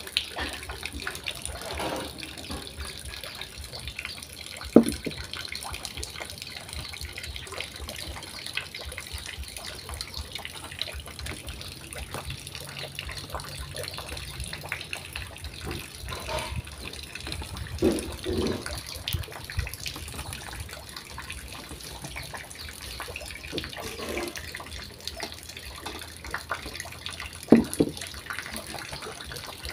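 Hands squeezing and kneading rice-flour dough in a stainless steel bowl, with a few sharp knocks against the bowl, the loudest about five seconds in and near the end, over a steady rushing hiss.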